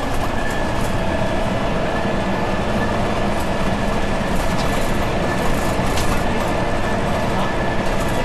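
Transbus Trident III double-deck bus under way, recorded near its axle: the Cummins ISMe six-cylinder diesel and driveline running with steady road noise, over which a steady high whine sounds, strengthening about halfway through.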